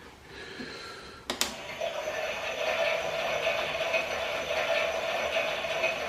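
Klein toy Miele washing machine: a sharp click about a second in, then a steady, even running sound for about four seconds that dies away at the end.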